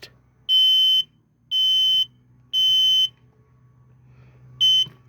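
Hardwired smoke alarm with battery backup sounding its alarm horn as its test button is held: three loud, high-pitched beeps of about half a second each, a pause, then one short beep near the end. This is the three-beep evacuation pattern, showing the alarm sounder works after the battery change.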